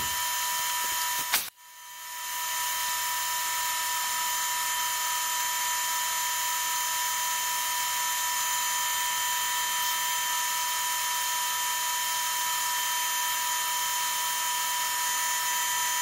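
Portable line boring machine running steadily with its boring bar turning in the bore of an excavator link, a steady whine of several fixed tones over hiss. A click and a brief dropout come about a second and a half in before the whine settles.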